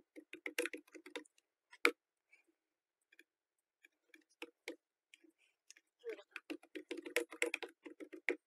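Faint computer-keyboard typing: a short run of keystrokes at the start, one sharper click about two seconds in, a few scattered keystrokes, then a longer, quicker run of typing near the end.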